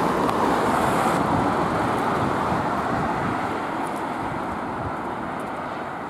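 Road traffic: a car driving past, loudest about a second in and slowly fading away.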